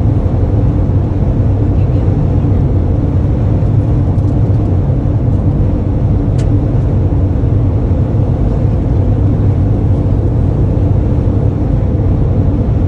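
Steady engine and road drone inside a Toyota van's cabin while it cruises along the highway.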